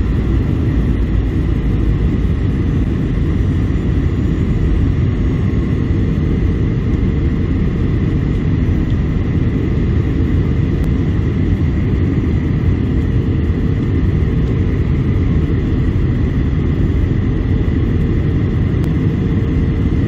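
Steady cabin noise of an ANA Boeing 737-800 in flight: a dense low roar of engines and airflow, with a faint steady high tone above it.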